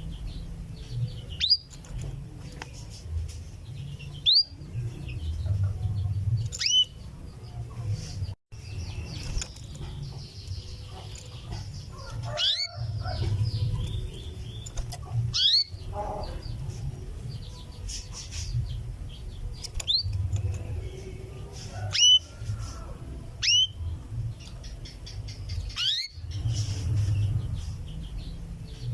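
Female canary calling for a male with repeated single 'cuwit' call notes, each a short, sharp note falling in pitch, one every one to two seconds, over a steady low hum.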